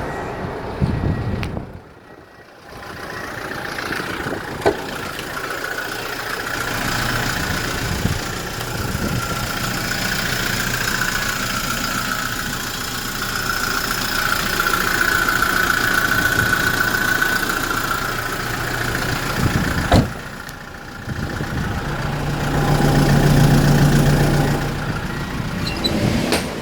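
Kia Bongo refrigerator truck's engine idling steadily, briefly dropping away twice, with a click about twenty seconds in.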